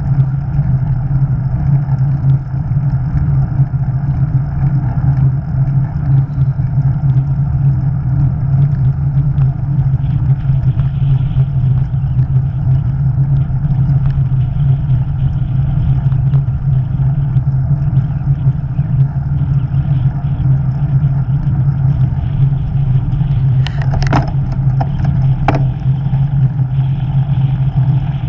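Motor vehicle engine running at a steady speed, with road and wind rumble on a mounted camera. Near the end there are a few sharp knocks.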